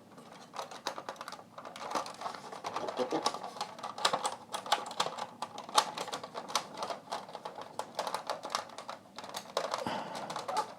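Hands working loose small parts of a cassette player's tape mechanism: many quick, irregular clicks and taps.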